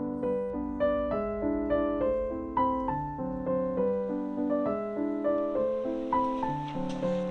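Background piano music: a gentle tune of struck notes in an even, unhurried rhythm.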